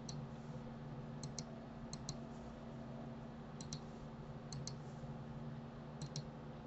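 Computer mouse clicking: about six quick double clicks, each a press and release, at uneven intervals over a low steady hum.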